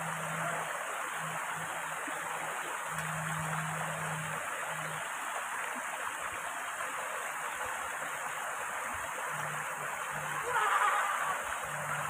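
Shallow rocky mountain stream rushing steadily over boulders and small cascades. A louder burst of sound rises about ten and a half seconds in and fades a second later.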